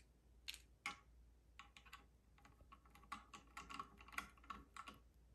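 Faint, irregular small clicks and scrapes of a screwdriver and fingers working the screw-down terminals of a Transtector DC Defender surge arrestor, tightening the DC power leads.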